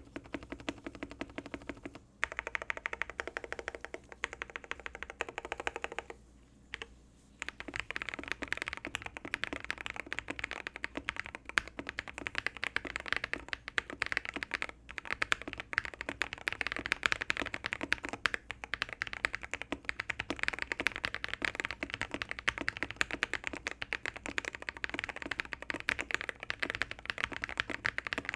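Fast, continuous typing on mechanical keyboards. The key sound changes about 2 seconds in, and after a short break about 7 seconds in the clacks are higher and brighter.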